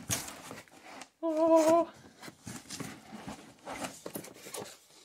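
Cardboard and paper rustling and scraping as a subwoofer's shipping box is opened and its paper insert lifted out. A short, steady hum about a second in is the loudest sound.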